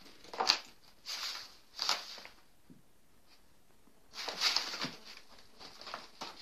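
Kittens scampering and scratching about in a cardboard box: their paws and claws scrabble on the cardboard and rustle the cloth. The sound comes in several short bursts, the longest a little over four seconds in.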